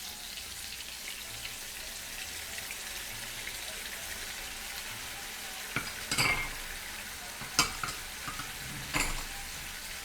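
Chicken breasts and portobello mushrooms sizzling steadily in a frying pan just after sweet marsala wine has been poured in, the wine cooking off its alcohol. About six seconds in come a few short knocks and clinks, a handful within three seconds.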